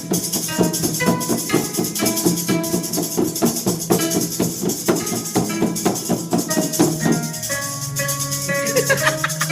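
Music with a fast shaker rhythm, drum strokes and plucked notes. About three-quarters of the way through the beat thins out into held notes, with a gliding sound near the end.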